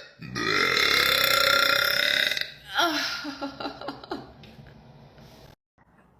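A woman's long, loud burp lasting about two seconds, followed by a few short, quieter vocal sounds.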